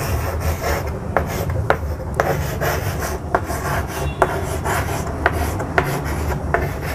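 Chalk scratching on a blackboard as words are written, the long scraping strokes broken by many short, sharp taps where the chalk strikes the board.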